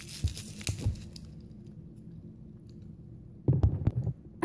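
A person biting and sucking on a frozen freezer pop in its plastic sleeve: a short cluster of clicks and mouth smacks about three and a half seconds in, after a quiet stretch.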